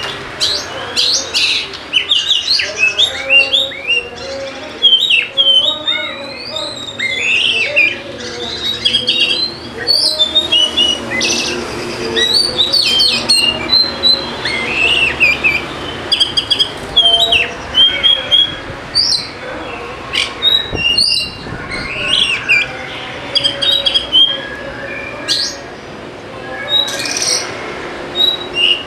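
Oriental magpie-robin (kacer) in full song: a long, varied run of loud chirps, whistled notes and quick pitch glides, delivered in phrases with short pauses between them.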